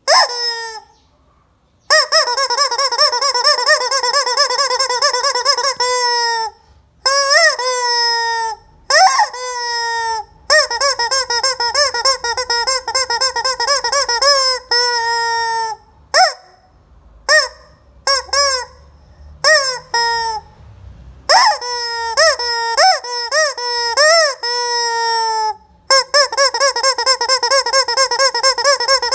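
Screaming rubber chicken squeeze toy squealing over and over: long drawn-out wavering squeals of two to four seconds alternate with short squawks as it is squeezed and let go.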